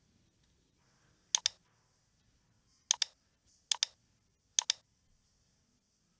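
Computer mouse double-clicking, four quick double-clicks a second or so apart.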